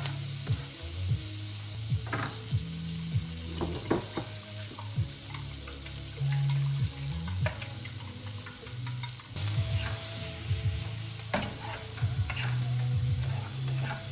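Food frying in a hot pan: a steady sizzle of oil, with scattered clicks and scrapes of a utensil stirring against the pan.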